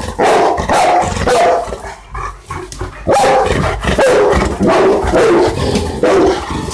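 Bernese mountain dog barking repeatedly at the front door, alert barking as if someone is there. The barks come about three a second, pause briefly about two seconds in, then start again.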